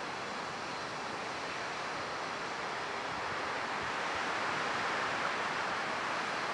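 Steady wind rustling through trees, an even hiss that swells a little about halfway through.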